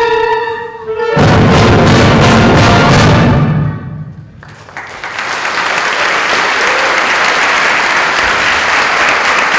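Wind band finishing a piece: a held chord fades, then a loud closing chord rings out and dies away. About four and a half seconds in, the audience breaks into applause that carries on.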